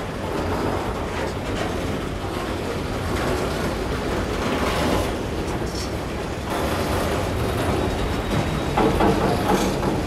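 Freight train of autorack cars rolling past on the near track: steel wheels running on the rails, a steady, continuous noise.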